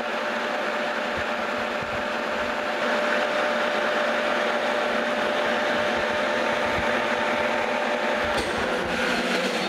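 Metal lathe running with its chuck spinning while a light finishing pass is taken on a small metal pin. A thin steady whine ends about eight seconds in, as the tool comes off the work.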